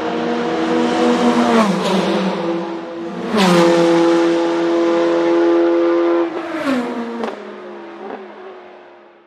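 Corvette C8.R GTE race car's 5.5-litre V8 running hard. The engine note holds steady for stretches, drops suddenly in pitch several times, and fades away near the end.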